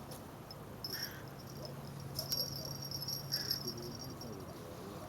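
High-pitched chirping trills of small creatures that start and stop, over a steady low hum.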